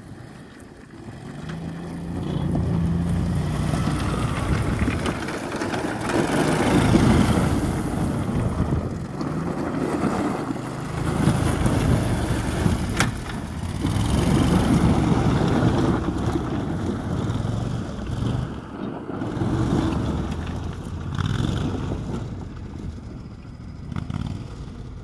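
Max Buffalo 6x6 amphibious ATV's engine running as the machine drives over rough ground. It comes up about two seconds in, rises and falls with the throttle, and fades near the end as the vehicle pulls away.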